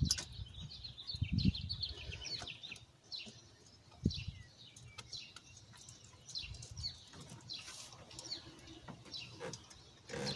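Small birds chirping over and over in short, falling chirps, with low handling noise in the first couple of seconds and a single sharp knock about four seconds in.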